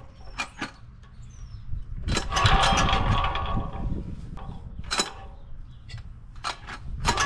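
Single-cylinder air-cooled 418cc diesel engine being hand-cranked with its recoil pull-start: two pulls, about two seconds in and again right at the end, each a short burst of rope whir and chugging compression, with sharp clicks in between. The engine is hard to start and has not yet caught.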